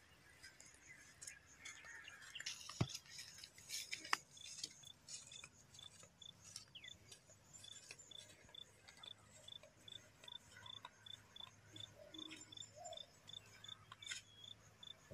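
Faint insect chirping in a steady rhythm of about two to three short high-pitched chirps a second. A few sharp clicks or knocks come around three and four seconds in.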